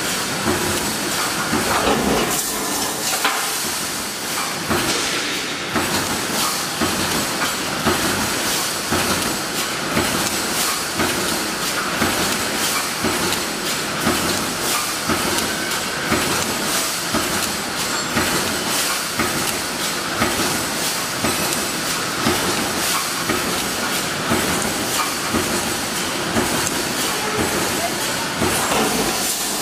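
Automatic welded wire mesh welding machine running: a steady, regular clatter of its welding and feeding strokes over a continuous hiss.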